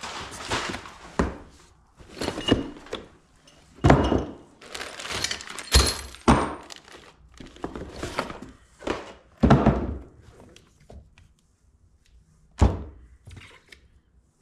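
Parts of an air-suspension kit being handled in a cardboard box: rubber air bags, a boxed shock absorber and bagged hardware are lifted and set down, making a string of thunks against the cardboard, with rustling of cardboard and plastic bags in between.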